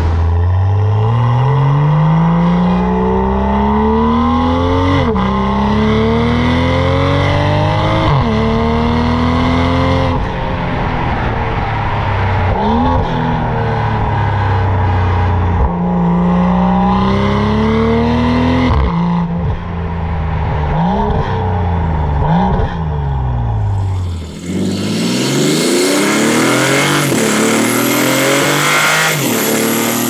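Stage 2 tuned BMW M340i's turbocharged 3.0-litre straight-six pulling hard through the gears: the engine note climbs in pitch and drops sharply at each upshift, several times over. Near the end the sound turns thinner and higher, with the low rumble gone.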